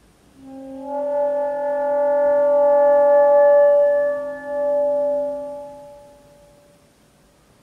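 Saxophone holding one long, chord-like tone with several pitches sounding at once over a lower note, swelling in from about half a second in and fading away by about six seconds.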